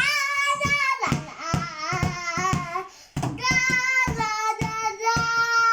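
A toddler singing wordless, high-pitched held notes ('ooh', 'la') in two phrases with a short break about three seconds in, over a regular beat of soft thumps.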